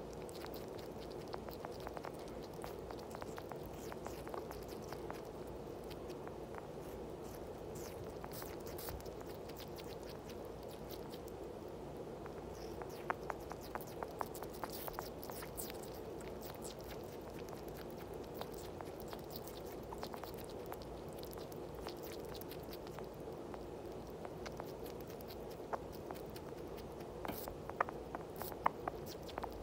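Two sugar gliders nibbling and chewing apple: faint, soft clicks and smacks of small mouths, with a few sharper bites around the middle and again near the end, over a steady hum.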